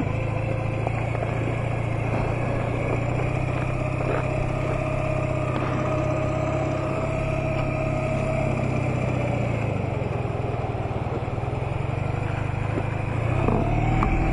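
2008 Honda Nighthawk 250's small air-cooled parallel-twin engine running steadily at road speed under wind noise. Near the end the engine note steps and climbs and gets louder as the bike pulls away harder.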